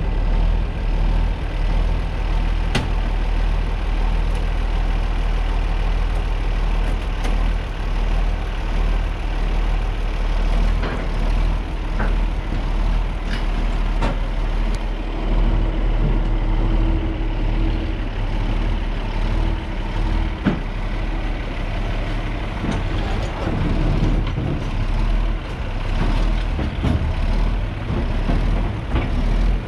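A heavy engine idling steadily, with a few sharp clicks and knocks over it.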